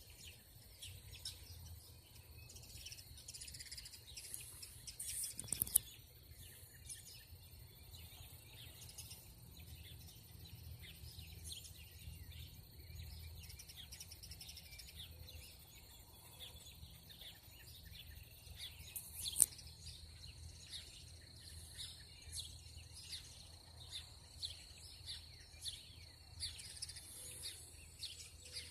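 Songbirds chirping faintly in a dawn chorus, many short scattered calls, over a steady high tone and a low background rumble. Two brief sharp knocks stand out, one about five seconds in and one about two-thirds of the way through.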